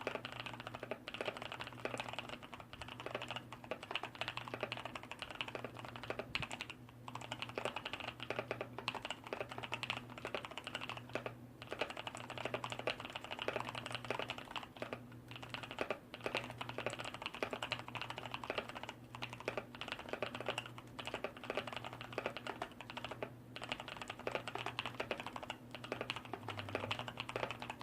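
Fast, continuous typing on a Skydigital NKEY-K5 RGB mechanical keyboard with Kailh Brown tactile switches, a dense run of keystroke clicks broken by a few brief pauses. The sliders and stabilizers are lightly lubed and the case has been sound-dampened.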